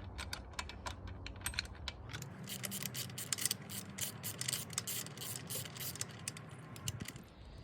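Rapid metallic clicking and ticking of hand-tool work with an Allen key on the dropper post's saddle clamp bolts, thicker from about two seconds in.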